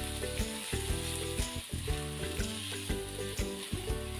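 Sambal Jawa frying in oil in a pan: a steady sizzle with light clicks of a spatula stirring it.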